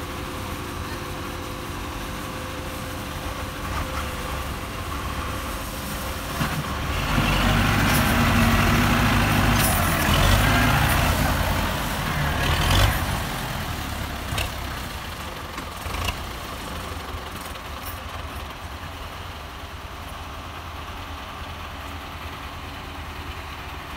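Diesel tractor engines running as a bogged Belarus MTZ-820 works in deep mud. About seven seconds in they are revved hard under heavy load for some six seconds, the strain of pulling through the mud, then settle back to a steady run.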